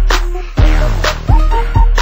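Electronic music with a heavy, steady bass beat and short synth notes, with a falling sweep about half a second in.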